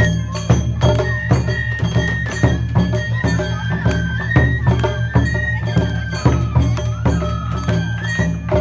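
Traditional Japanese festival dance music: a high flute melody over a fast, steady beat of percussion.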